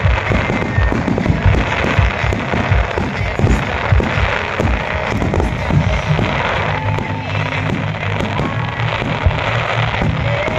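Fireworks display: a rapid barrage of shell bursts with dense crackling, thickest through the first half, with music underneath.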